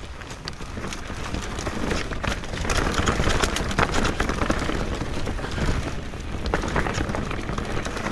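Mountain bike riding fast down a rough forest dirt singletrack: tyres crunching over dirt, dry leaves and small stones, with the bike rattling in quick clicks and knocks over a low rumble. It gets louder about two and a half seconds in.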